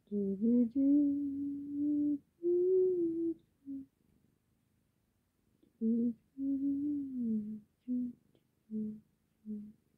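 A person humming a slow tune in held, gently gliding notes. There is a pause of about two seconds in the middle, and a few short single notes near the end.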